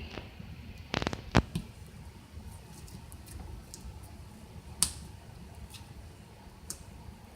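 Slime being spread and pressed by hand, non-butter slime, giving sharp sticky clicks and pops over a faint background. The clicks cluster about a second in, with another loud one near five seconds and a weaker one later.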